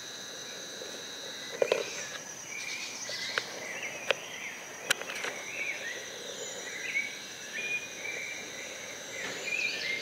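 Rainforest dawn chorus: a steady high insect drone on two pitches, with birds chirping and warbling on and off, and a few short clicks.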